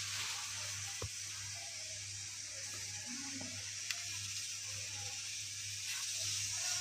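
Quiet steady hiss with a low hum underneath, and a couple of faint light taps as a plate is tipped against a glass bowl to pour flour in.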